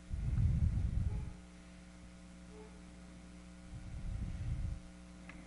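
Steady electrical mains hum, with two low muffled rumbles: one at the start lasting about a second, and another about four seconds in.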